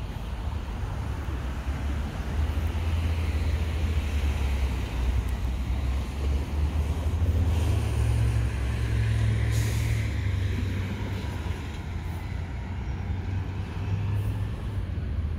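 Street traffic: road vehicles passing with a constant low rumble, one going by most loudly about eight to ten seconds in.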